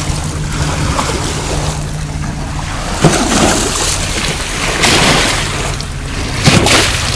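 Small lake waves washing onto a sandy, stony shore, with a few louder surges of wash, over wind buffeting the microphone.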